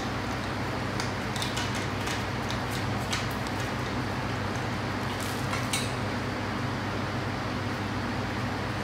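Light clicks and taps of the organizer's metal frame tubes and plastic connectors being handled and fitted together, a few at a time with short gaps, over a steady background hum.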